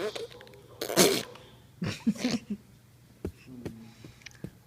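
A single sharp sneeze about a second in, followed a second later by a few short vocal sounds.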